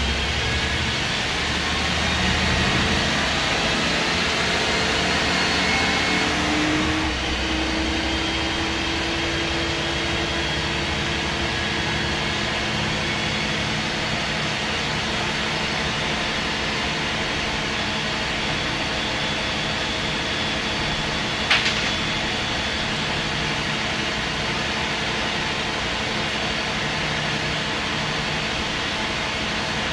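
MAN SD202 double-decker bus, its MAN D2566 MUH six-cylinder diesel and Voith Diwa 851 automatic gearbox heard from inside, accelerating with a rising whine for about seven seconds, then changing note and running steadily at speed. A single sharp click about two-thirds of the way through.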